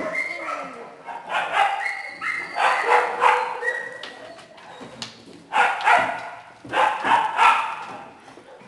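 Several small dogs barking and yipping in repeated bursts, with some high whining in between.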